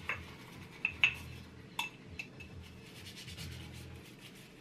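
Glass candle jars clinking against each other and the counter as they are handled and wiped clean, with several sharp clinks in the first two and a half seconds, the loudest about a second in. After that comes a softer rubbing of cloth on glass.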